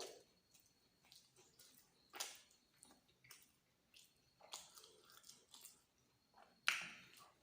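A person chewing and biting food close to the microphone, eating luchi with egg masala: irregular short wet mouth sounds, the loudest near the end.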